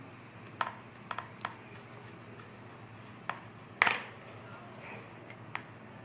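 Mixing stick knocking and clicking against the container while slime made of clear glue and lotion is stirred: about seven short, sharp taps at irregular intervals, the loudest a little before four seconds in.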